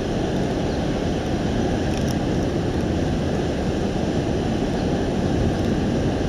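Steady low rushing outdoor noise with no distinct calls or events.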